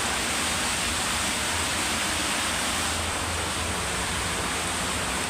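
A steady, even rushing noise with no distinct clicks or tones.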